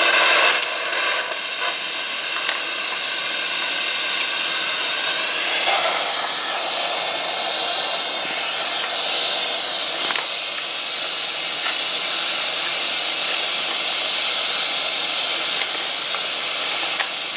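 SBox ghost scanner (spirit box) sweeping through radio frequencies, its speaker giving a steady hiss of radio static. The hiss turns brighter about six seconds in, with a single click about ten seconds in.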